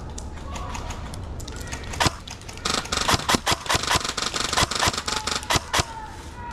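Airsoft guns firing in quick, irregular shots, starting about two seconds in and stopping shortly before the end.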